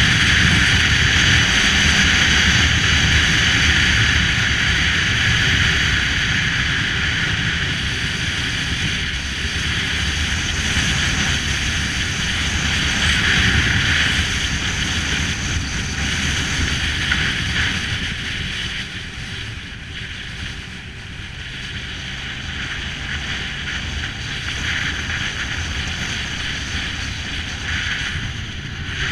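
Motorcycle ride heard from a handlebar-mounted camera: wind buffeting the microphone in a steady loud hiss over the bike's low engine rumble. It eases a little around twenty seconds in, then picks up again.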